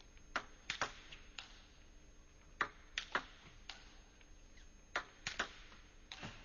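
Table tennis rally: the celluloid ball clicking sharply off the rubber-covered rackets and the table, about a dozen clicks at uneven spacing, some in quick pairs.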